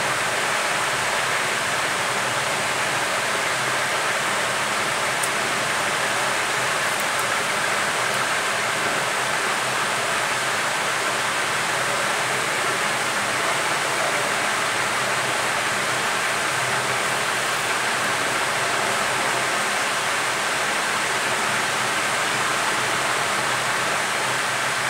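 Steady rush of blowing air with a faint, even whine, unchanging throughout.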